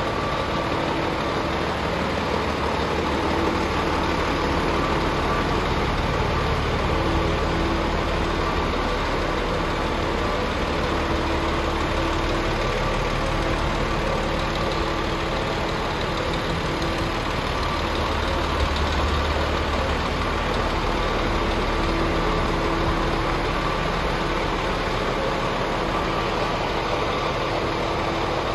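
Scania R440 tractor unit's 13-litre straight-six diesel idling steadily.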